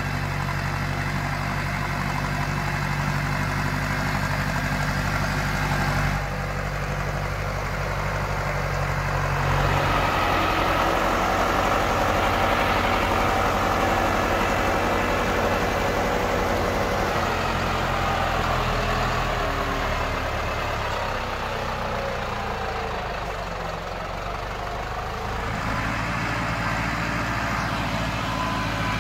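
Same Argon 80 tractor's diesel engine running on the move. It is steady at first, then louder from about ten seconds in with its pitch shifting up and down, and settles back to a steady note near the end.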